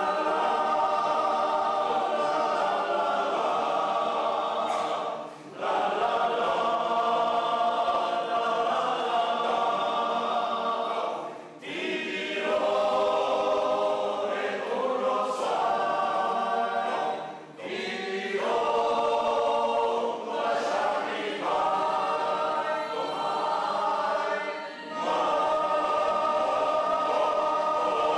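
Choir singing held chords in phrases a few seconds long, with short breaks between the phrases.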